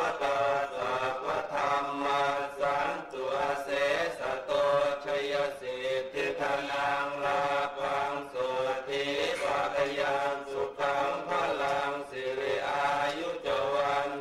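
Buddhist monks chanting together in unison, in repeated phrases with short pauses between them.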